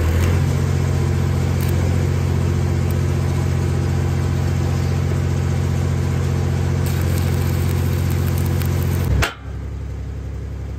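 Engine-driven stick welder running steadily under load while a stick-welding arc crackles and hisses. About nine seconds in, the sound drops abruptly and stays quieter.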